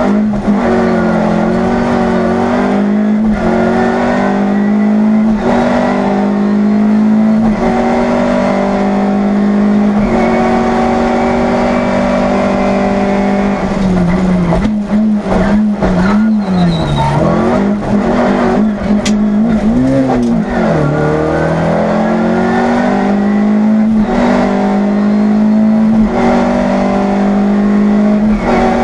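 Škoda Favorit 136 L rally car's 1.3-litre four-cylinder engine at high revs flat out, heard from inside the cabin. The pitch mostly holds steady, with brief breaks at gear changes. About halfway through, the revs dip and rise several times as the driver lifts and accelerates again.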